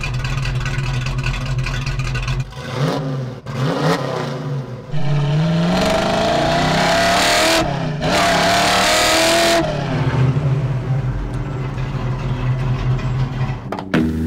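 1965 Ford Mustang's mildly built 289 V8 through full-length headers, an X-pipe and Black Widow Venom 250 mufflers. It runs steadily, is blipped a few times, then pulls hard twice with rising pitch and a short break between the pulls for a gear shift, then settles back to a steady run.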